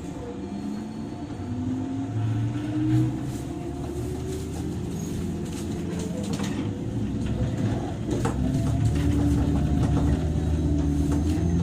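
JR 103 series electric train heard from inside motor car MoHa 103-773, accelerating: the traction motor and gear whine glides upward in pitch over the running rumble and grows louder, settling into steadier tones toward the end.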